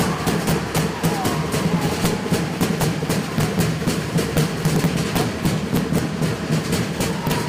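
Fast, steady drumming at about five to six strikes a second, with sharp wooden knocks over a deeper drum: Samoan fire knife dance drumming on log drums.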